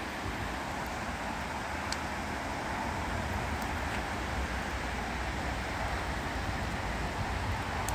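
Steady rush of the Little Pigeon River running over shallow rapids, with a low rumble underneath.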